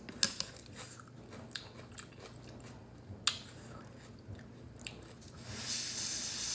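Close-up chewing of udon noodles: small wet clicks of the mouth and lips scattered throughout, with a longer hissing sound near the end.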